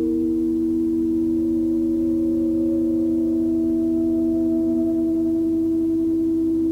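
Ambient drone music: a few steady held tones layered together, with fainter higher tones slowly entering over the first few seconds and no drums. It is a 1992 home recording made on a four-track cassette recorder.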